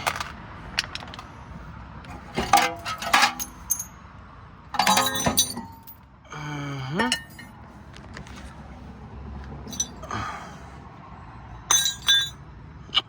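Metal tools clanking and clinking against car wheel and brake hardware: several separate ringing metallic clanks spread through the stretch.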